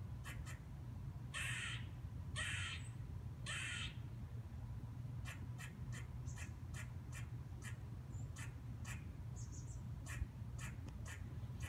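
A tree squirrel barking with its dog-like call: three longer barks about a second apart, then a quicker run of short, clipped barks, about two or three a second.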